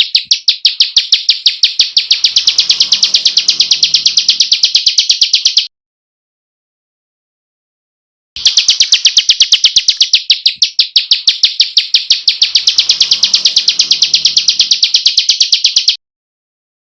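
Kecial kombok (cucak kombok) song: a long, fast run of sharp high chirping notes, about eight a second. It cuts off suddenly after nearly six seconds, stops for almost three seconds, then starts again for about eight seconds and cuts off.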